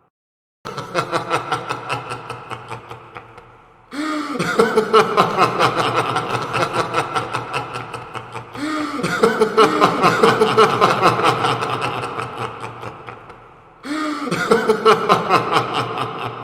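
Evil-laugh sound effect: a voice laughing in rapid 'ha-ha-ha' bursts, played four times over, each laugh starting loud and fading away over four to five seconds.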